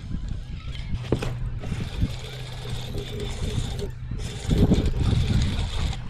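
Spinning reel being cranked to reel in a hooked fish. The noise grows louder from about four and a half seconds in.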